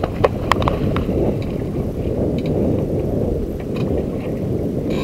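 Steady low rumble of wind on the microphone and water around a small boat, with a few sharp splashes in the first second as a hooked dogfish thrashes at the surface.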